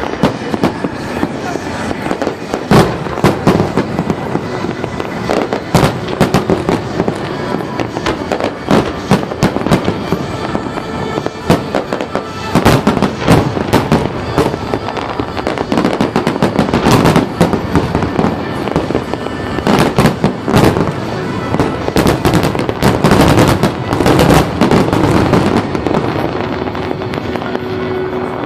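Aerial fireworks exploding in a rapid, irregular series of bangs and crackles, with dense clusters of bursts through the middle and later part, thinning out near the end.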